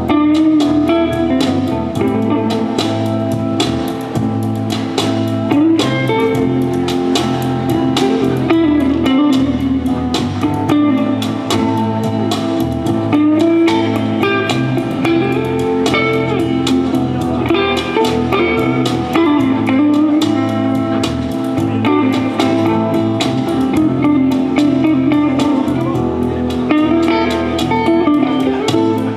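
A rock band playing live: acoustic guitar, hollow-body electric guitar, electric bass and a small drum kit of snare and cymbal, with the drums keeping a steady beat.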